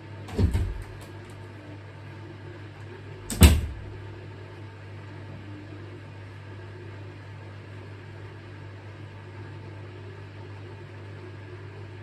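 Hoover DynamicNext washing machine's drain pump running with a steady hum as it pumps out the wash water, broken by two loud thumps about three seconds apart early in the run.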